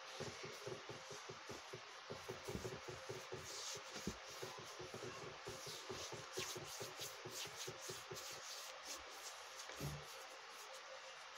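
A palm rubbing a dried homemade scrub off the skin of the forearm and hand in quick, repeated back-and-forth strokes, the set paste rolling off as crumbs. The rubbing is soft and fast, several strokes a second.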